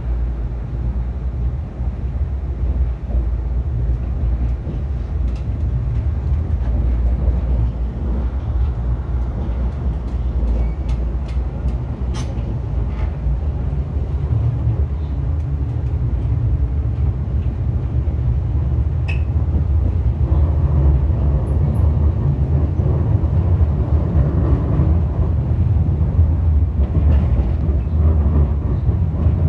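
Light-rail tram running, heard from inside the car: a steady low rumble of motors and wheels on the rails, growing slightly louder, with a few faint clicks and rattles scattered through it.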